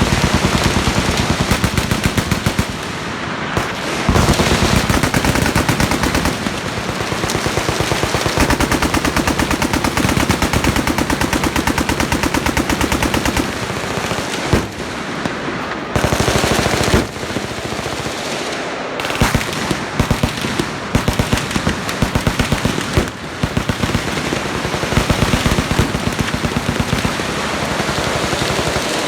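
Many machine guns firing full-auto at once along a firing line: a continuous, overlapping stream of rapid shots, with several louder blasts standing out along the way.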